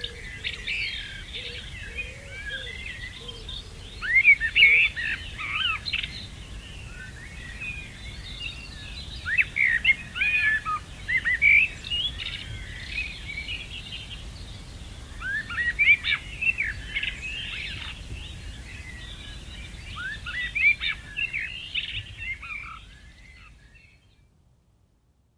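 Garden songbirds singing in bursts of quick, varied phrases every few seconds, over a low, steady background rumble. The sound fades out to silence near the end.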